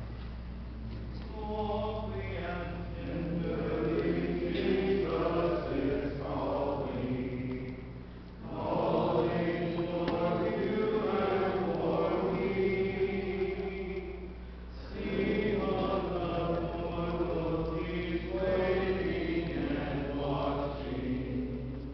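Church congregation singing a hymn together a cappella, many voices in long phrases, with short pauses for breath about eight and fifteen seconds in.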